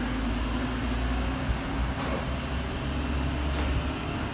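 Steady low rumble and hum of background noise, with a few faint clicks.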